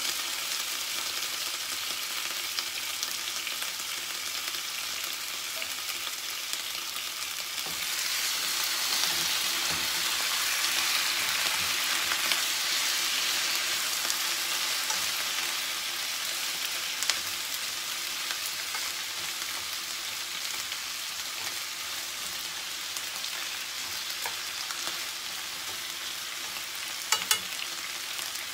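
Pork feet and sliced onions sizzling as they fry in a pan, stirred with chopsticks; the sizzle grows louder about a quarter of the way in and eases off later. Two sharp clicks near the end.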